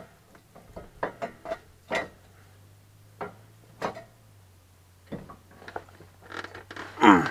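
Sharp metal clinks and knocks from a Datsun's idler arm and steering linkage as they are swung back around and worked into place by hand, irregular and a dozen or so in all. The loudest, longest clatter comes near the end.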